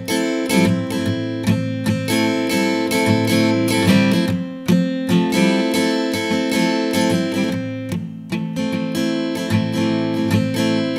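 Acoustic guitar strumming chords in a steady rhythm, each strum sharp at the start and ringing on, with no singing.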